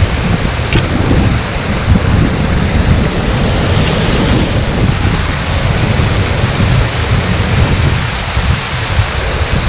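Creek water spilling over a low rock ledge in small falls, a steady rushing splash, with wind buffeting the microphone in uneven low rumbles. About three seconds in, the splashing turns brighter and closer for a second or so.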